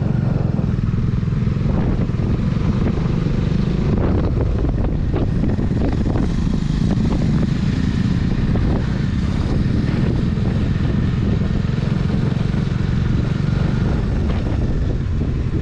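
Bajaj Dominar 400's single-cylinder engine running steadily as the motorcycle is ridden along.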